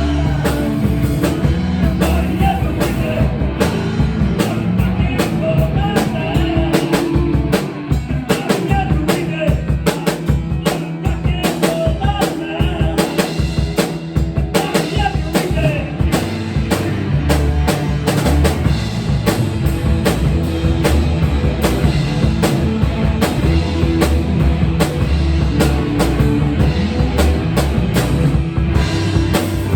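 Rock music driven by a busy drum kit, with fast, dense drum hits over a steady low bass line.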